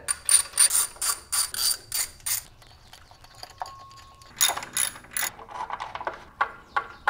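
Hand socket ratchet clicking in quick runs of about five clicks a second as bolts are backed out of the engine's front accessory pulleys, with a pause in the middle and lighter scattered clicks near the end.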